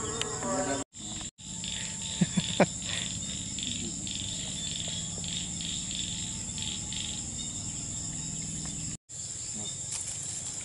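Chorus of crickets and other insects: a steady high-pitched trill with a second, pulsing chirp beneath it. Three sharp clicks come about two seconds in, and the sound cuts out briefly twice near the start and once near the end.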